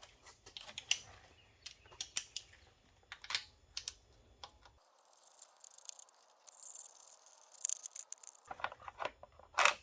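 Ratchet wrench with a 7/16 socket and extension clicking as it backs out motorcycle breather bolts. Scattered sharp clicks give way to a few seconds of quick, continuous ratcheting, with a louder metallic clatter near the end.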